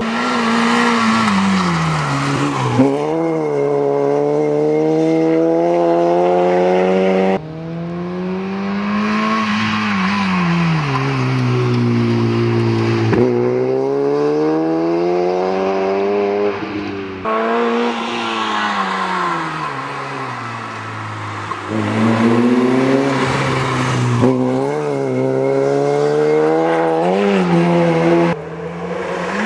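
Renault Megane Coupe rally car's engine revving hard, its pitch climbing and dropping repeatedly with gear changes and lifts for corners. The sound breaks off abruptly three times between passes.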